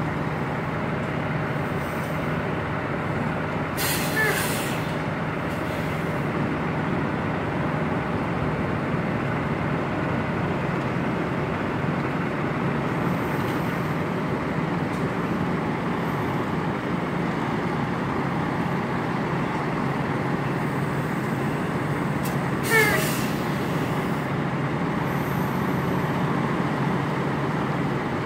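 Semi-truck diesel engine running steadily at low revs as the tractor-trailer backs slowly. Twice, about four seconds in and again some twenty seconds later, comes a short sharp hiss with a squeal from the air brakes, the second one the louder.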